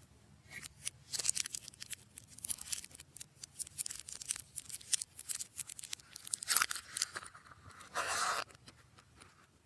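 Slime being worked by hand: a dense run of sticky crackling and popping clicks, with one longer continuous hiss-like squelch about eight seconds in.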